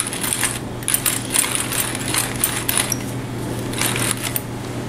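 Brass hand-cranked pepper mill grinding peppercorns: a gritty, crackling grind in repeated turns of the crank, stopping shortly before the end.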